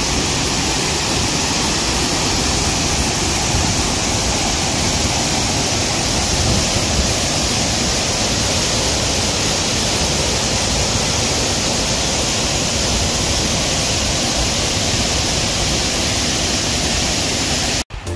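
Waterfall pouring steadily into its pool: an unbroken, even rush of falling water.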